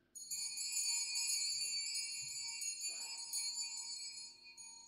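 Altar bells rung at the elevation of the chalice during the consecration at Mass: a jingling peal of many small bells, rung for about four and a half seconds and fading out near the end.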